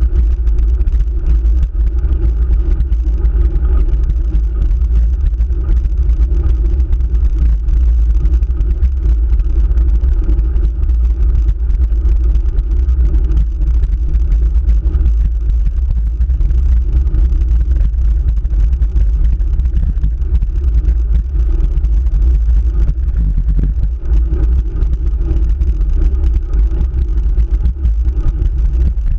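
Steady deep rumble of wind buffeting and road vibration picked up by a handlebar-mounted camera on a road bike climbing a paved hill.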